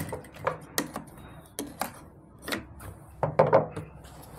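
An electric sewing machine stops right at the start, followed by scattered light clicks and knocks as the machine and the fabric under it are handled, with a small cluster of louder clicks about three and a half seconds in.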